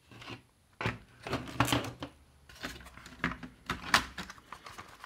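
Irregular plastic clicks and knocks from the parts and shell of a Nerf Stryfe blaster being handled.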